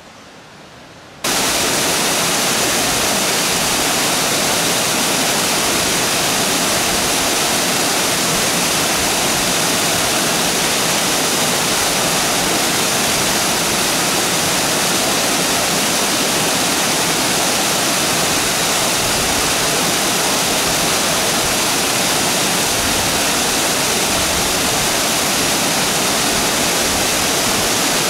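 Waterfall pouring off a rock ledge into a pool: a loud, steady rush of water that cuts in suddenly about a second in, after a faint hush.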